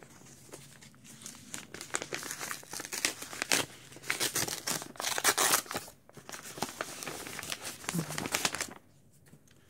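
A paper mail envelope being torn open and its contents pulled out: irregular crinkling and rustling of paper that stops shortly before the end.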